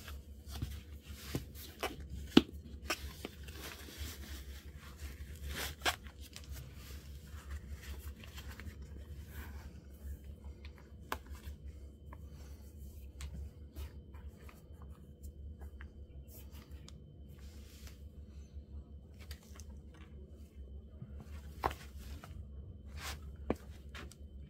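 Laces of an adidas Terrex Skychaser hiking shoe being pulled tight and tied by hand: scattered rustles and small clicks of lace and shoe upper being handled, with one sharper click about two seconds in, over a steady low hum.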